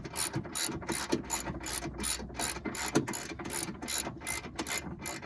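Hand ratchet wrench clicking rapidly and evenly, about five clicks a second, as it is worked back and forth to drive in a screw.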